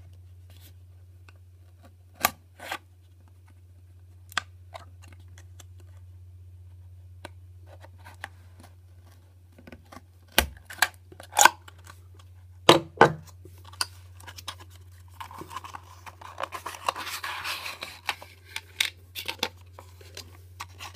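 Small cardboard-and-plastic retail box being opened by hand: scattered clicks and snaps of the packaging, then a few seconds of tearing and rustling about three-quarters of the way through. A steady low hum runs underneath.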